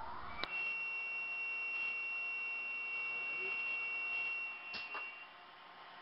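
Pistorius MN 200 double miter saw running with a steady high-pitched whine. It comes in with a click about half a second in and stops with another click about five seconds in.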